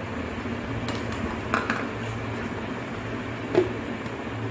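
A few light knocks and clicks as jaggery is tipped from a plastic bowl into a steel mixer-grinder jar, then a sharper click about three and a half seconds in as the jar's lid is fitted, over a steady low hum.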